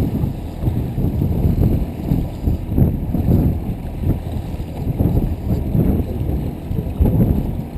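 Wind buffeting the microphone on a trolling fishing boat, a loud uneven rumble over the steady noise of the boat's motor and water.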